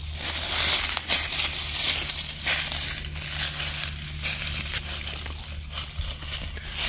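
Footsteps crunching through thick dry leaf litter on a forest floor, a crunch with each step at a steady walking pace.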